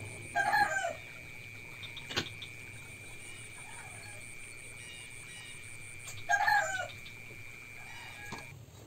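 A chicken calls twice, each call short and loud, about six seconds apart. A single sharp knock comes about two seconds in.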